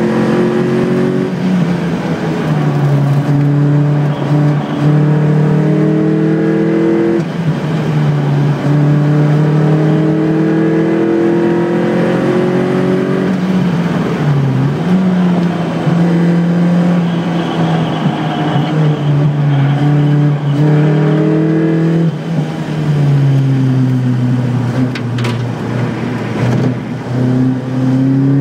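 Engine of a car lapping a race circuit, heard onboard. It climbs slowly in pitch under acceleration, and the pitch drops sharply half a dozen times at gear changes and lifts for corners.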